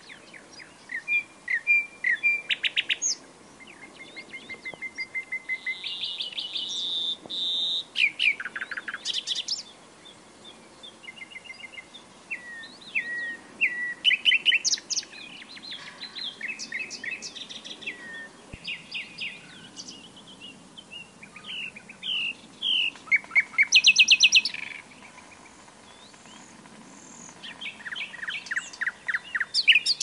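Nightingale singing: phrase after phrase of varied song, with fast trills of repeated notes and a drawn-out whistle, broken by short pauses.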